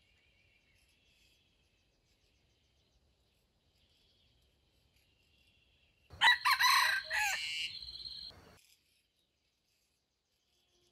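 A red junglefowl rooster crows once, about six seconds in: one loud crow of a little over two seconds that breaks off sharply. Faint high insect chirping runs underneath.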